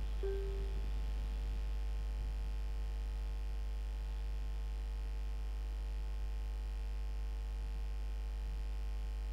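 Steady low electrical hum, mains hum with faint evenly spaced overtones, and nothing else; a short faint tone sounds just after the start.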